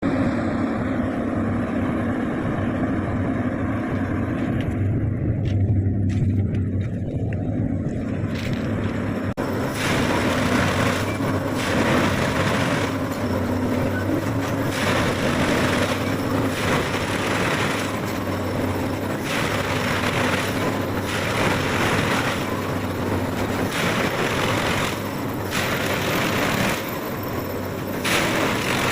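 A railway track machine working. Its engine drones steadily, and from about ten seconds in, hissing, crackling bursts come every second or two over it.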